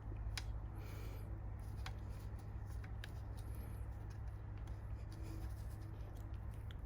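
Faint clicks and rubbing of plastic as a small battery vent tube is worked into the vent hole on the side of a car battery, over a steady low hum.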